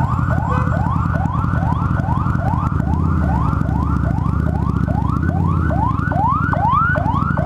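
Ambulance siren close by, sounding a fast rising yelp that repeats about two and a half times a second. Under it, the Harley-Davidson V-Rod Muscle's V-twin with Vance & Hines slip-on exhaust runs low in slow traffic.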